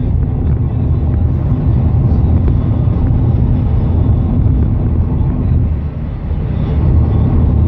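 Steady low rumble of a vehicle driving at road speed, heard from inside the cabin: engine and tyre noise with a brief dip in loudness about six seconds in.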